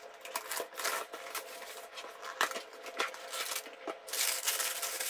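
Hands handling a cardboard jigsaw-puzzle box and a clear plastic bag of puzzle pieces: scraping and rustling, then a stretch of louder plastic-bag crinkling near the end.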